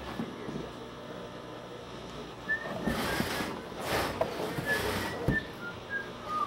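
Rustling and soft knocks of synthetic-leather handbags being handled and set down on a worktable, over a steady background hum. From about halfway in, the handling gets louder and a few short high chirps are heard.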